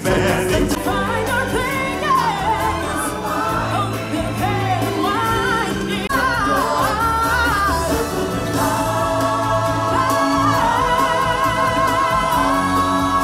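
Live stage-show singing with musical accompaniment. The singers' melodic lines carry over a steady backing, and the music jumps abruptly about six seconds in.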